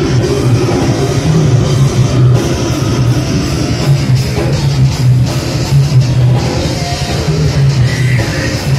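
A slam and brutal death metal band playing live: heavy electric guitars grind out a low, chugging riff over fast, pounding drums.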